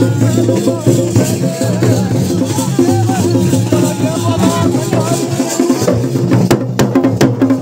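Dhol and damau drums playing a mandan dance rhythm, with a wavering melody over them. Sharp drum strokes stand out in the last second or so.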